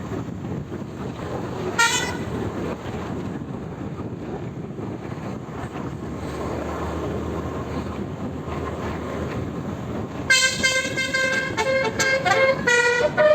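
A bus's basuri 'telolet' multi-tone musical horn over steady engine and road noise. A short toot comes about two seconds in; near the end the horn plays a quick tune of changing notes.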